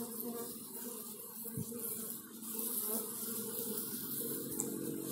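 Steady buzzing hum of a small honeybee swarm, with many bees flying close around the cluster.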